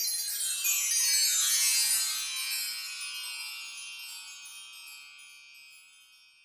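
Sparkling chime sound effect: a quick shimmer of bell-like tones sweeping down in pitch over the first couple of seconds, then a cluster of high ringing tones slowly dying away.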